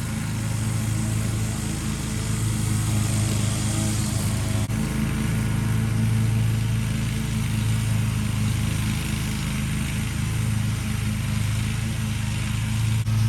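Commercial mower engine running steadily at full throttle while mowing, a constant low hum.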